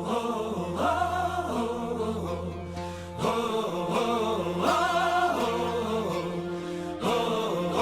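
Music played back through a cassette deck: choir-like voices singing long, wordless phrases over a steady low drone.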